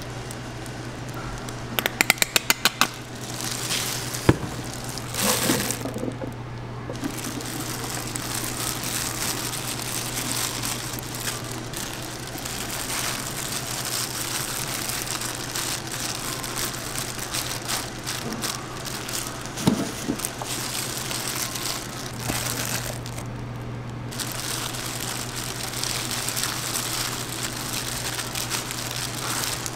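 Plastic food-prep gloves crinkling and shredded cheese and crumbled meat rustling as toppings are spread by hand over a pizza base, over a steady low hum. A quick run of sharp clicks and a single knock come in the first few seconds.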